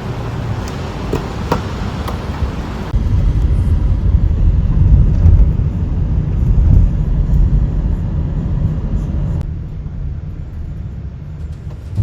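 Car on the move: a steady low rumble of road and engine noise, which gets louder about three seconds in.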